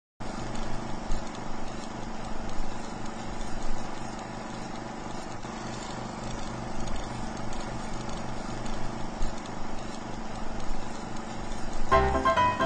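Film projector running with a steady rhythmic clatter and hum, as an old-movie effect under a countdown leader. Near the end, music with plucked or struck notes comes in.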